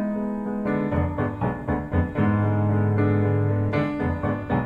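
Background instrumental keyboard music: a string of piano-like notes over a held low bass that comes in about a second in.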